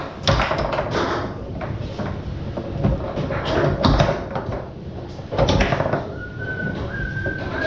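Foosball in play on a Tornado table: an irregular run of sharp knocks and clacks as the ball is struck by the men and hits the table walls, with the rods banging as they are slid and stopped. A thin steady tone comes in near the end.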